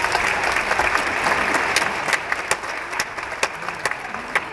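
Theatre audience applauding, a dense mass of clapping that thins out after about two seconds into scattered individual claps, with a few sharp close claps near the end.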